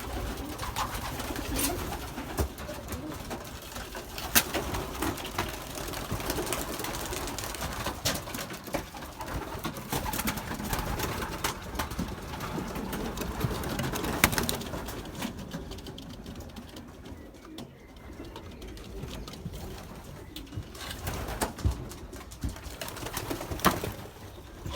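Young racing pigeons cooing inside a loft, with scattered sharp clicks and knocks among them; the cooing grows quieter about halfway through.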